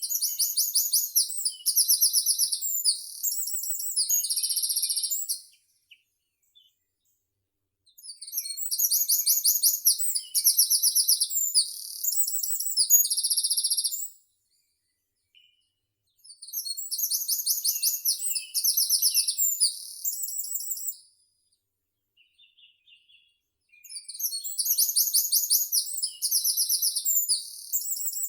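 A songbird singing a high-pitched song of several rapid trills, each song about five seconds long, repeated four times with short pauses between.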